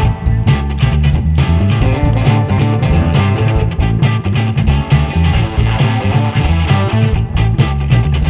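Background music: guitar-led rock with a steady beat and a strong bass line.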